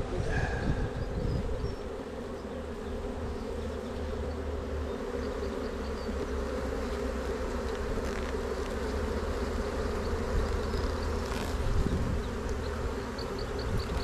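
Steady buzzing hum of a honeybee colony swarming over an open hive and its frames. A few faint clicks come near the middle.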